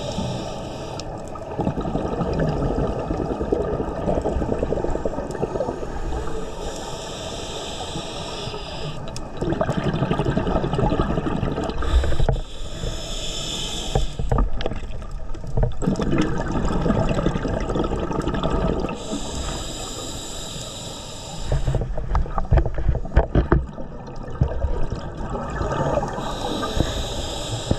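A scuba diver breathing through a regulator underwater: a hiss with each inhale, about every six to seven seconds, alternating with the rumbling bubble stream of each exhale.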